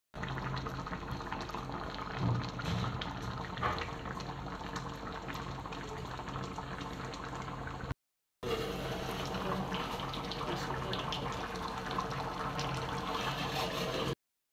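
Pork curry boiling in a large metal pot, a steady bubbling and hissing as the meat cooks in its masala and water. The sound cuts out briefly about eight seconds in.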